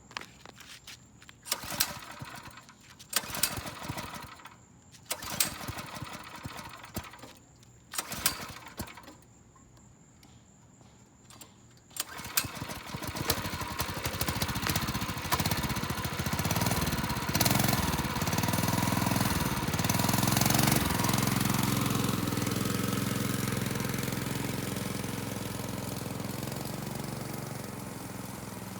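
A few separate sharp knocks and clatters with quiet gaps, then about twelve seconds in the mini bike's small single-cylinder engine starts up and keeps running. It revs up and down a few times, then holds steady and slowly fades as the bike rides off on its test ride.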